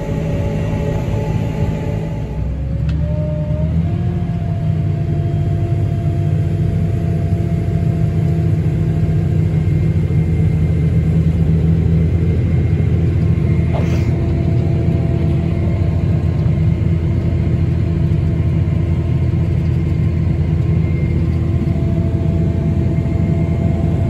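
Tractor engine and grain cart auger running steadily, heard from inside the tractor cab while the cart unloads wheat into a semi trailer. A rising whine settles into a steady tone about three seconds in.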